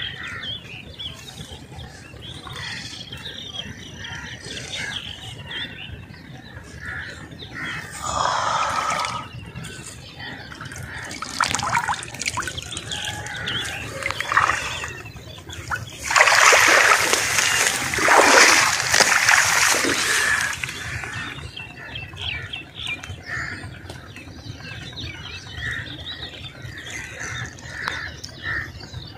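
Splashing and sloshing in shallow water among reeds as hands grab a snakehead fish, in several noisy bouts, the loudest lasting about four seconds a little past the middle.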